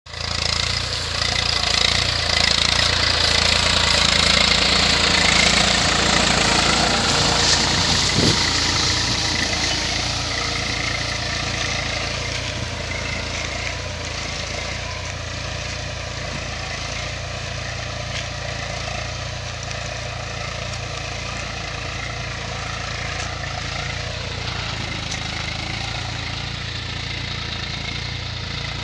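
Eicher 380 tractor's three-cylinder diesel engine labouring steadily as it pulls a tine cultivator through dry soil. It is loud as the tractor comes close over the first few seconds, then fades somewhat and holds steady as it pulls away.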